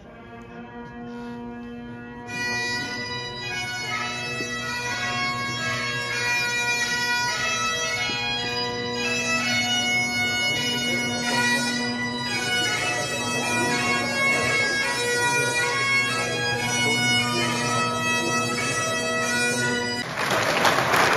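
Highland bagpipes playing a tune over their steady drones, the melody growing louder about two seconds in. Applause breaks out near the end.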